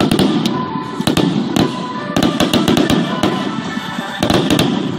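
Aerial fireworks shells launching and bursting: a rapid series of sharp bangs, several a second, over a steady background din.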